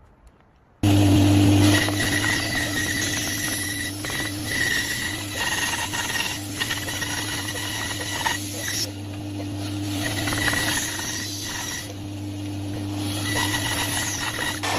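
Wood lathe running with a steady motor hum, while a turning tool cuts the spinning wood with an uneven scraping hiss. It starts suddenly about a second in.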